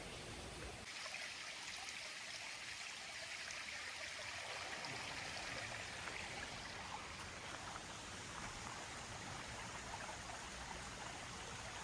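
Mountain stream tumbling over small cascades: a steady rush of running water.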